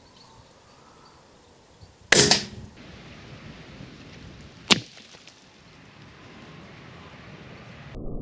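A suppressed .22 LR bolt-action rifle (Savage Mark II) firing a subsonic hollowpoint round: a sharp, muffled report about two seconds in, with a short ring after it. A second, briefer sharp click follows about two and a half seconds later.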